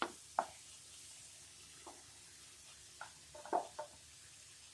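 Wooden spatula stirring and scraping tomato-onion masala in a non-stick pan: a handful of short knocks and scrapes over a faint sizzle, with cooked rice being tipped into the pan near the end.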